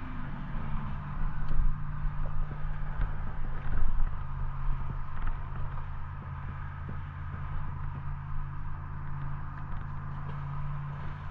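An engine running steadily, its pitch easing down slightly at the start, over an uneven low rumble.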